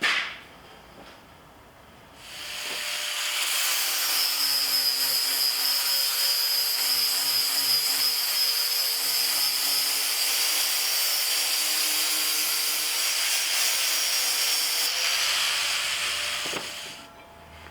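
An electric power tool starts about two seconds in and runs steadily for about thirteen seconds with a high hiss, then winds down near the end.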